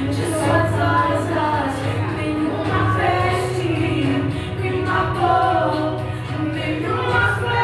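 A woman singing a gospel song in sustained, melodic phrases over musical accompaniment.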